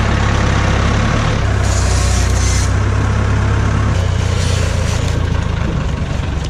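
Diesel engine of a large rough-terrain forklift running steadily at close range, with a strong low hum.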